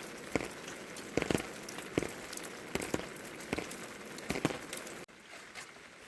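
Rain falling, a steady hiss with irregular heavier drops tapping on a surface; the sound drops suddenly to a quieter level about five seconds in.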